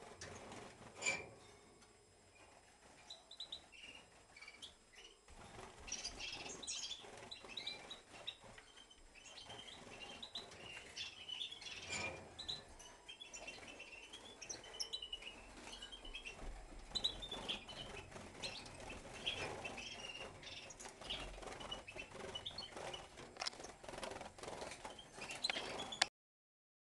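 European goldfinches twittering in a cage: quick, tumbling runs of short high chirps that start a few seconds in and carry on in bursts. A sharp click comes about a second in, and the sound breaks off for a moment near the end.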